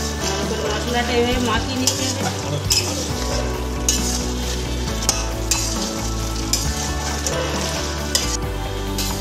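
Flat metal spatula stirring and scraping chicken pieces through a spiced masala in a metal kadai, with the food sizzling as it fries during the kosha stage of a Bengali chicken curry. A scrape comes roughly every second.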